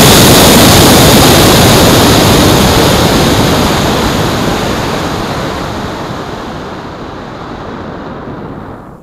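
Air rushing over a rocket's onboard keychain camera as the rocket coasts upward after its fast-burning motor has burnt out. It is a loud, steady rush at first and fades gradually as the rocket slows, dropping away near the end.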